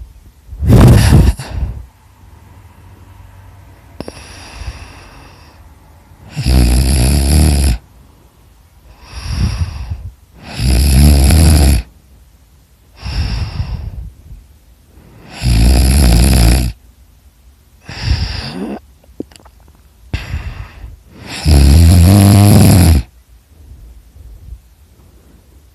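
A person snoring loudly: five long snores, one about every five seconds, with a softer breath between each.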